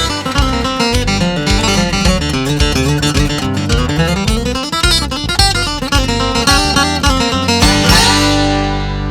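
Country music: an instrumental acoustic guitar passage with no singing.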